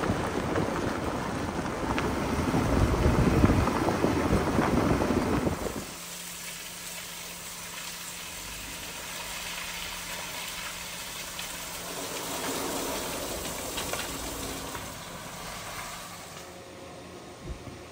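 Jeep Wrangler rolling along a dirt trail, tyres rumbling over the dirt and gravel close to the microphone. About six seconds in this cuts off to a quieter steady hiss of water falling from a rock bluff onto the wet road, with a faint steady low hum beneath.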